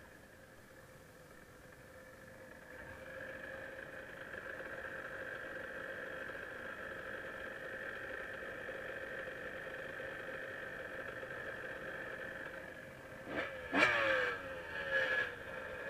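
Dirt bike engine idling steadily while the bike lies on its side, then revved in two short blips near the end, the pitch falling back after each.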